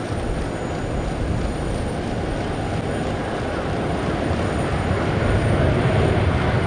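Airbus A340-300 airliner on its landing rollout just after touchdown: a steady rushing noise from its four CFM56 jet engines and tyres on the runway, growing louder over the last couple of seconds.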